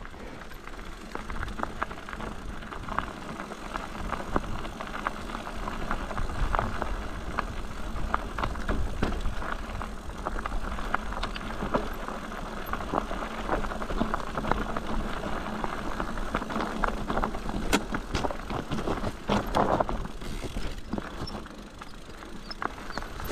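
Mountain bike rolling down a rocky mountain trail: tyres crunching over stones and the bike rattling in a continuous run of small clicks and knocks, over a low rumble of wind on the microphone.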